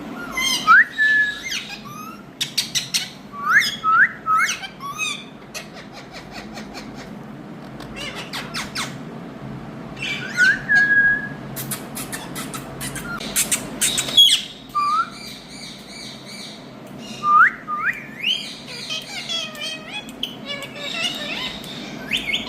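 Green Indian ringneck parakeet calling: short rising whistles, often two or three in quick succession, mixed with sharp clicks and harsh squawks.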